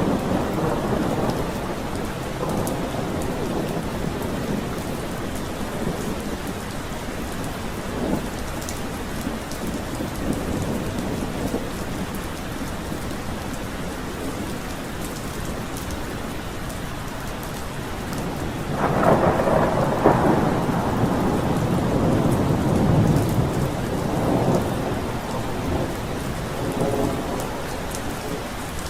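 Steady rain falling during a thunderstorm, with thunder rumbling at the start and again in a long, louder roll from about two-thirds of the way in.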